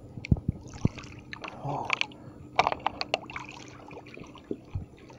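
Shallow river water splashing and sloshing as a hand works a plastic bottle under the surface, in irregular splashes with small clicks, and a few dull knocks in the first second.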